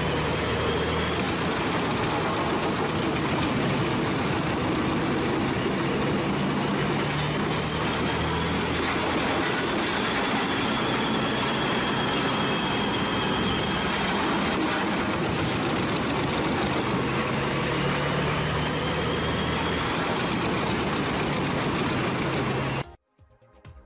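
Wood chipper running: a steady engine hum under a loud, even rushing noise. It cuts off abruptly near the end.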